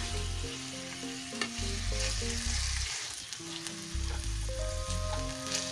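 Chicken strips sizzling in hot oil in a nonstick frying pan as they are stirred, with a few sharp spatula taps against the pan. Soft background music with a bass line plays under it.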